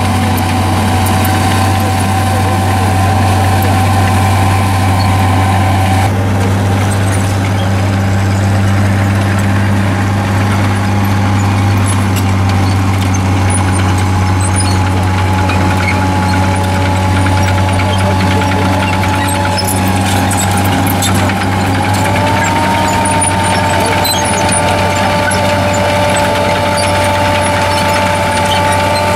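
Tank engine running steadily, with a steady high whine over it that steps up in pitch about three-quarters of the way through.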